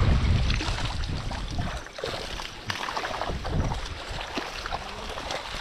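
Shallow floodwater rushing and splashing through a fine mesh fishing net held across the current, with a heavy low rumble in the first two seconds.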